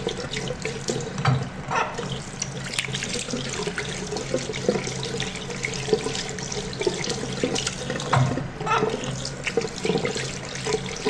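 Running tap water splashing steadily over a muddy toy excavator as it is washed, with many small irregular splashes and knocks.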